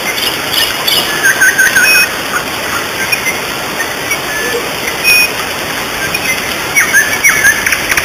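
Waterfall's steady rush of falling water, with short chirping bird calls over it about a second in and again near the end.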